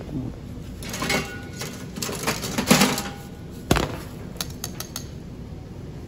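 Knocks and clattering clicks of hard plastic bakery trays being taken from a stack and handled. Three louder knocks are followed by a quick run of light ticks about four to five seconds in.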